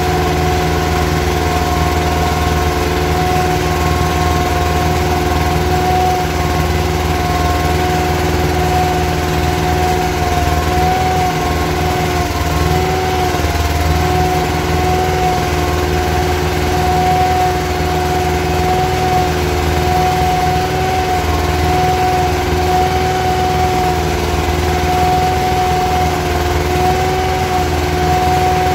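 Yağmur YET 510 patpat (two-wheel tractor) engine running steadily under way, heard from the driver's seat, with a steady whine over its low rumble.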